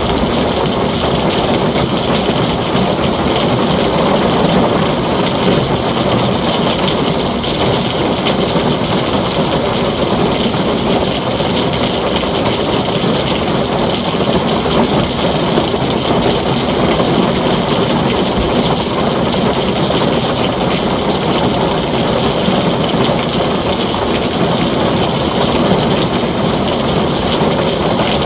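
Heavy rain drumming steadily on a tin roof, a dense even hiss and patter with no break.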